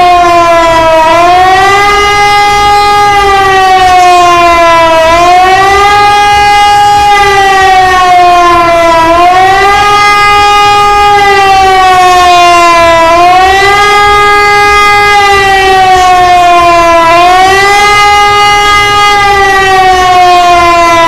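A loud siren wailing, its pitch sinking slowly for about three seconds and then swinging back up quickly, over and over about every four seconds.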